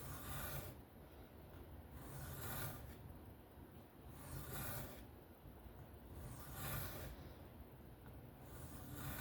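Steel knife blade drawn across a whetstone in freehand sharpening strokes: a soft scraping swell about every two seconds, five strokes in all.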